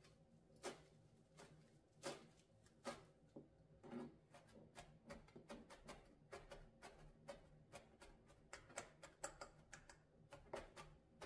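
Chef's knife chopping fresh parsley on a plastic cutting board: faint sharp taps of the blade on the board, spaced out at first, then quicker, several a second, from about halfway.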